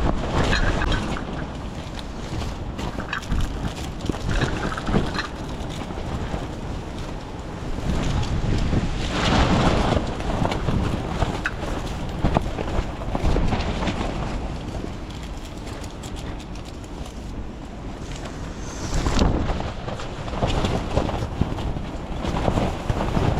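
Gale-force wind buffeting the microphone with a heavy rumble, swelling in strong gusts about nine seconds in and again near the end.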